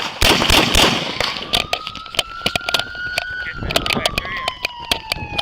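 Police car siren wailing, its pitch rising and falling slowly, with many sharp cracks and clicks scattered through it, loudest in a burst in the first second.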